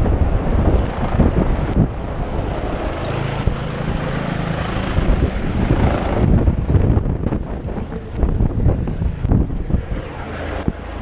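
Rescue helicopter hovering overhead during a hoist lowering, its rotor noise mixed with rotor-wash wind buffeting the microphone in a steady, fluttering rumble.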